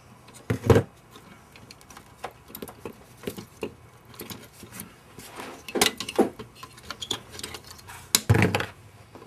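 Plastic synthesizer keys and their metal key combs on a Prophet-5's Pratt-Read keyboard clicking and knocking as they are handled and worked loose. Irregular light clicks, with a few louder knocks about half a second in, around six seconds in, and near the end.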